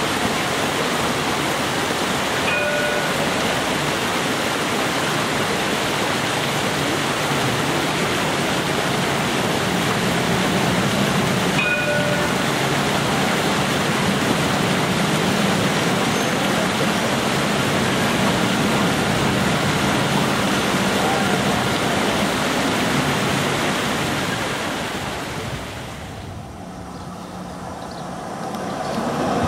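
A steady, loud rushing hiss like running water fills the scene as an Alstom Citadis tram moves slowly past, with two short ringing tones, one about three seconds in and one about twelve seconds in. Near the end the hiss drops away and the running of another approaching Citadis tram rises.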